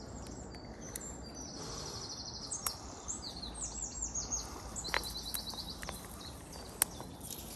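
Small songbirds singing and chirping, with a fast trill of repeated notes twice, over a steady low outdoor rumble; a few sharp clicks in between.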